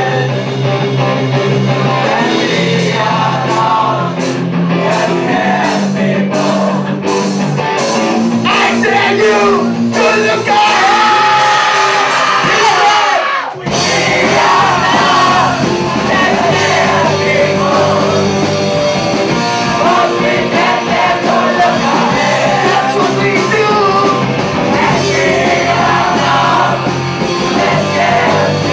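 Live rock music with several voices singing and shouting over the band. The music drops out for a moment about halfway through, then comes back in at full level.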